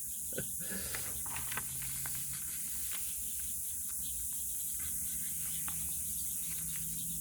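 A steady high hiss, with a few faint soft clicks and rustles of paper journal pages being handled.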